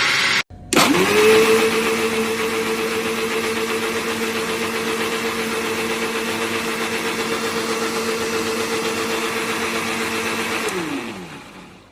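Suruchi Elantra 800-watt mixer grinder's motor starting, spinning up quickly to a steady whine and running for about ten seconds. It is then switched off and winds down, its pitch falling as it fades. A previous run cuts off abruptly half a second in.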